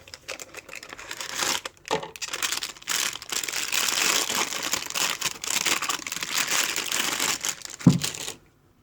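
Packaging being unwrapped: crinkling, rustling and tearing as a new idler pulley is taken out of its box and wrapping. It stops about eight seconds in.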